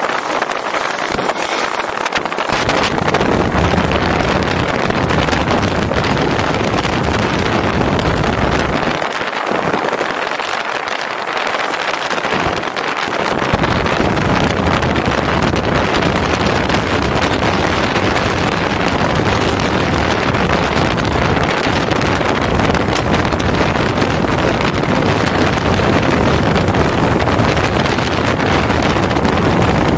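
Motorcycle on the move at road speed: wind rushing over the bike-mounted microphone with the engine and road noise under it. The low rumble eases off for a few seconds near the middle.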